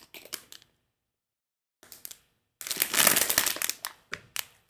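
Clear plastic bag around a bundle of quilting fabric crinkling as it is handled: a few short rustles in the first second, a pause, then dense crinkling through the second half.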